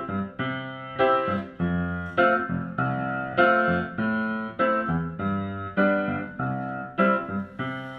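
Instrumental song intro: keyboard chords struck at an even pace, each ringing and fading before the next.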